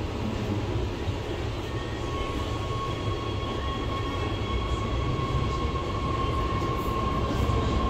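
Metro train heard from inside the car as it pulls out of a station: a steady low rumble, with the traction motors' whine coming in about two seconds in and the sound growing slightly louder as the train gathers speed.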